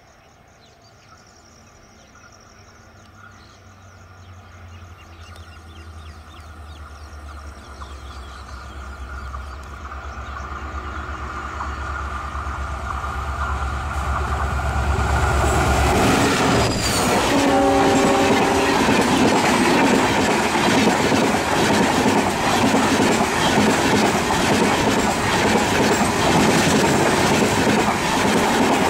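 Diesel locomotive approaching, its low engine rumble growing steadily louder. About sixteen seconds in it passes with a drop in pitch, and a few brief steady tones sound just after. The coaches then rush past loudly, wheels clattering over the rail joints.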